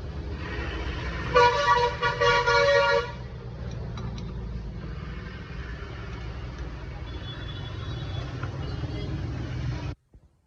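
A vehicle horn honks in two or three quick blasts lasting about a second and a half in all, over a steady low rumble of passing traffic. The sound cuts off abruptly near the end.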